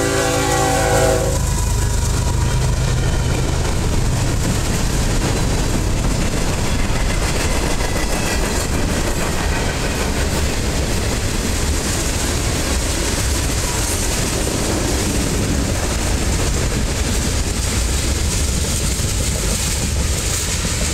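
A CSX freight train passes close by. The diesel locomotive's horn sounds chord-like and cuts off about a second in. Then comes a steady rumble of wheels rolling on the rails as a boxcar and tank cars go by.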